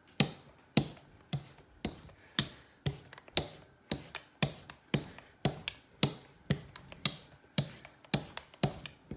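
A small rolling pin worked quickly back and forth over tortilla dough on a marble countertop, giving a sharp knock about twice a second at each turn of the stroke.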